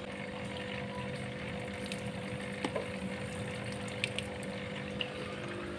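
Thin stream of water pouring from a tipped bucket into a fish tank, a steady trickle over a low steady hum, with a few light clicks.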